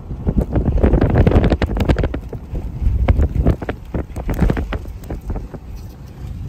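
Gusty wind buffeting the microphone through an open vehicle window: a heavy low rumble with rapid crackling and rising and falling surges.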